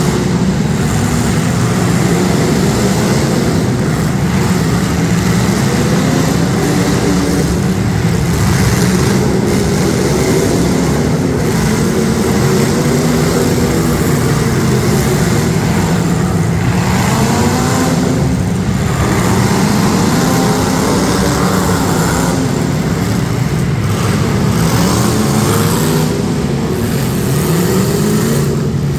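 Demolition derby street stock cars' engines revving together, several engine pitches rising and falling at once in a loud, continuous din.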